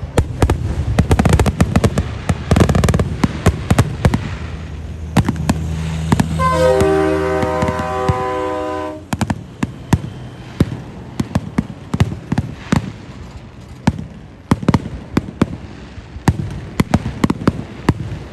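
Fireworks going off: a long run of sharp bangs and crackles. About six seconds in, a steady horn-like blare of several pitches sounds over the bangs for about three seconds and then cuts off.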